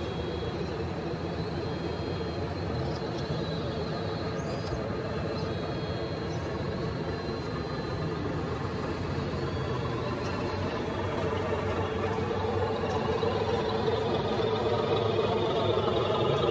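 Remote-control construction models running, a steady electric motor and gear noise that grows louder over the last few seconds.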